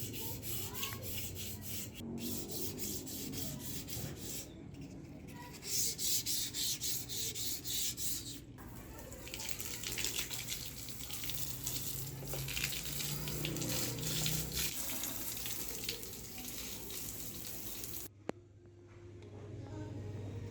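Water running and splashing in a steady hiss, in several short stretches joined by abrupt cuts.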